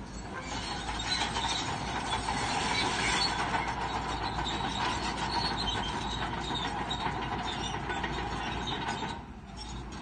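Crawler bulldozer at work: engine running under load with the steel tracks clanking and squealing, a steady dense mechanical noise that briefly drops a little after nine seconds.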